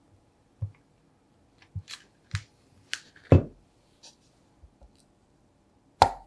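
A chef's knife slicing through a cold block of butter, its blade knocking down onto wrapper paper and a wooden cutting board in a series of separate soft knocks and clicks. The loudest is a low thud a little after three seconds in, with another just before the end.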